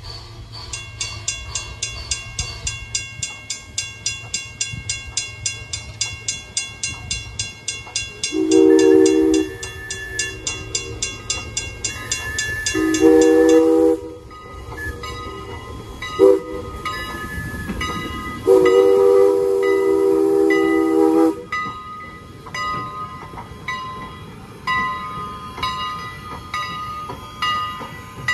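Steam whistle of Strasburg Rail Road 2-6-0 locomotive No. 89 sounding the grade-crossing signal, long, long, short, long. Under it a grade-crossing bell rings rapidly, about three strokes a second.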